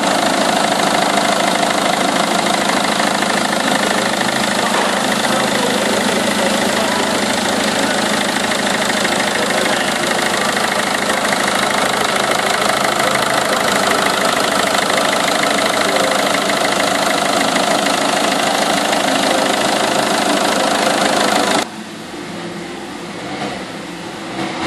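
Peugeot 207's 1.6 four-cylinder turbodiesel engine idling steadily, heard close up under the open bonnet. About 22 seconds in, the sound drops suddenly to a quieter, muffled idle heard from inside the cabin.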